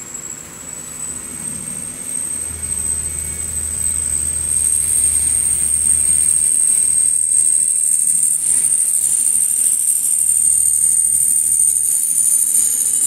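150 kVA CAT diesel generator set running, with a high-pitched whine that rises slightly in pitch and grows louder over the first few seconds, then holds steady over a low engine hum.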